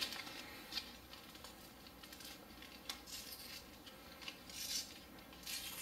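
Faint, scattered rustling and crinkling of a packet being handled, in a few short soft bursts.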